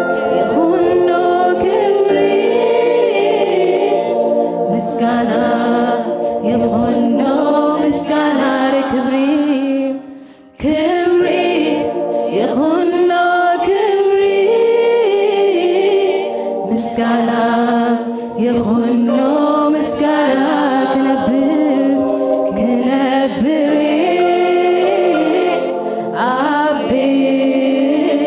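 Mixed choir of women and men singing a Tigrinya worship song into microphones, breaking off briefly about ten seconds in.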